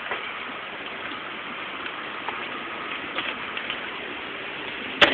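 Hard rain falling steadily, a constant hiss of drops, with one sharp click near the end.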